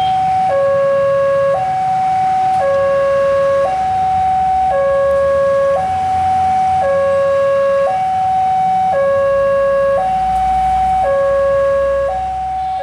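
Railway level-crossing warning alarm sounding a steady two-tone hi-lo signal, each tone held about a second. Underneath, the low rumble of an approaching CC206 diesel-electric locomotive grows louder near the end as it pulls away from the signal.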